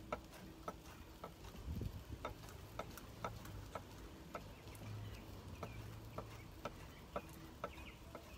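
Knife chopping on a cutting board: a run of short knocks, about three a second, with a brief pause about a second and a half in.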